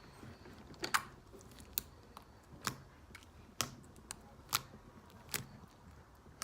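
Homemade slime being kneaded and stretched by hand, giving sharp clicking pops about once a second. The slime has had contact lens solution worked in and no longer sticks.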